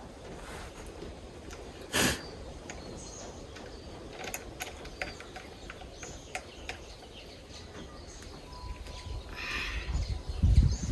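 Small metal clicks and clinks as the burr and collet of a die grinder are handled with spanners, with one louder clunk about two seconds in. Faint bird chirps sound behind.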